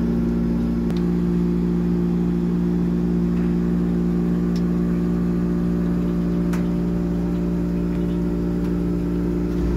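Steady mechanical hum of a refrigerated display freezer's compressor and fans, a few low tones held unchanged throughout, with a couple of faint clicks.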